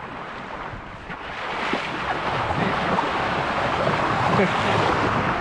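Seawater rushing and splashing along a sailing yacht's hull, with wind buffeting the microphone. The rush builds louder from about a second in.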